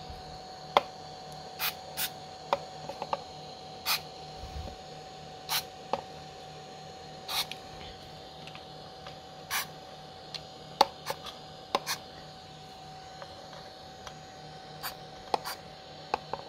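Aerosol chain lube sprayed in a string of short, irregular squirts onto the metal gearbox gears of an RC tank, over a faint steady hum.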